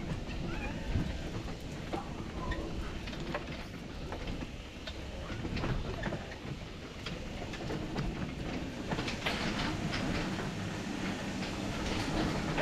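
Wheels rolling over brick paving: a steady low rumble with irregular rattling clicks and knocks, busier in the last few seconds.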